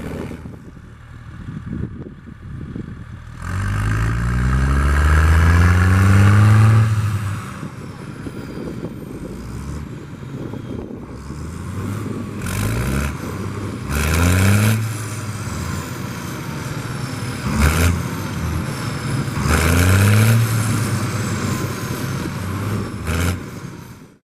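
International Harvester 1455 XL tractor diesel engine being revved from idle over and over. The pitch rises and holds each time, then drops back. The longest rev comes about a quarter of the way in, followed by several shorter blips.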